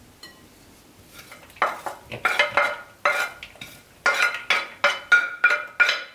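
Wooden spoon scraping and knocking chopped vegetables off a ceramic plate into a glass bowl: a quick run of clinks and scrapes, some with a short ringing note, starting about a second and a half in.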